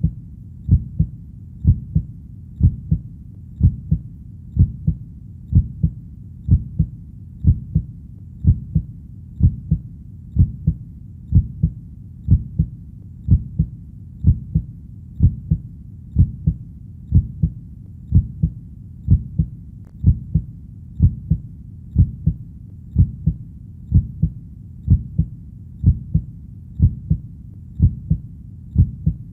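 Heartbeat in a slow, steady lub-dub rhythm, about one beat a second, each beat a pair of low, dull thuds.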